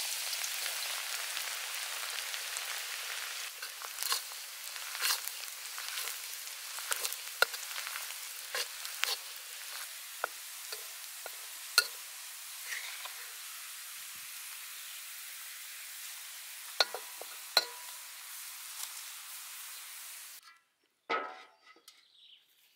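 Chopped garlic frying in hot soybean oil in a wok: a steady sizzle with scattered sharp clicks as a metal spatula stirs it. The sizzle cuts off suddenly near the end.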